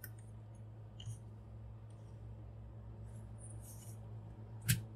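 Faint clicks and rustles of the plastic parts of a Wonderful-Trans Atlas transforming robot figure being handled and adjusted, with one sharper click near the end.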